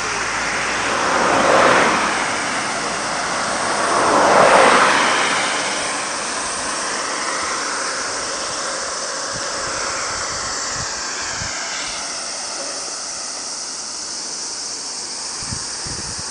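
Two road vehicles passing by, the first swelling up about two seconds in and a louder one about four and a half seconds in, over a steady high hiss.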